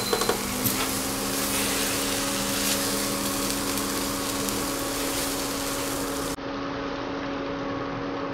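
Prawns and spring onion greens sizzling in a kadhai on an induction cooktop as they are stirred with a spatula, with a few spatula clicks against the pan near the start, over a steady low hum. The sound drops slightly and turns duller a little after six seconds.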